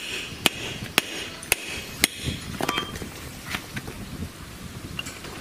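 Club hammer striking a steel tube used as a drift on a cast metal housing: five sharp metal blows about two a second. After that come a few lighter clinks of metal parts being handled.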